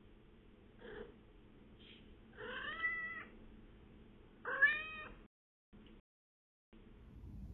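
A domestic tabby cat giving short mrrp trills: two chirping calls with a rising, bending pitch, the second louder, after a couple of faint brief chirps.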